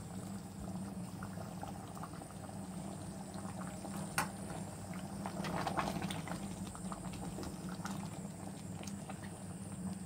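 Chicken curry bubbling at a boil in a pot while coconut paste is stirred in with a spatula, with a sharp tap about four seconds in and a brief louder stretch of stirring just after.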